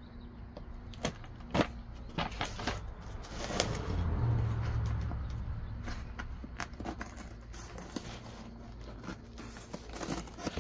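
A cardboard parcel being handled and cut open with scissors: scattered taps and clicks, and a louder, longer rustle from about four to six seconds in.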